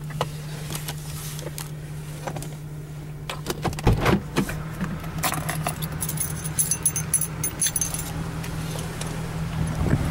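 Keys jangling and a run of clicks and knocks from handling inside a parked car, with a heavier knock about four seconds in. The high jingling is loudest from about five to eight seconds, over a low steady hum.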